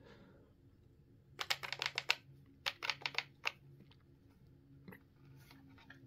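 Quiet plastic clicks from a Kidde smoke and carbon monoxide alarm being handled and its test button pressed, in two quick flurries of clicks followed by a couple of single clicks.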